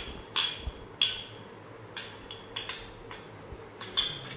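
A utensil knocking against a salad bowl: about eight sharp, irregular clinks, each ringing briefly.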